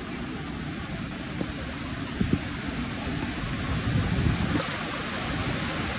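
Muddy floodwater running in a shallow sheet along a yard path: a steady wash of flowing water. A couple of short knocks come about two seconds in.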